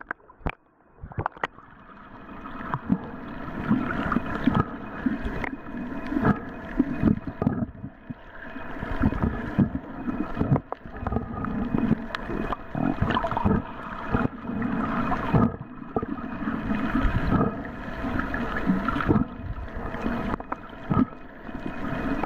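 Rough waves surging in shallow water, heard underwater and muffled, with irregular thumps and gurgles as the water sloshes around the camera. It begins near-quiet and swells after a couple of seconds.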